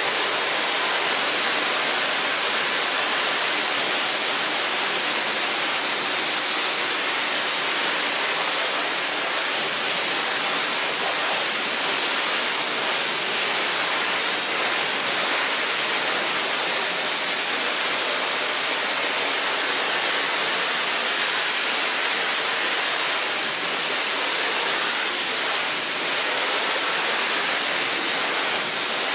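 Carpet-cleaning equipment working a rug with a loud, steady rushing hiss that does not break or change.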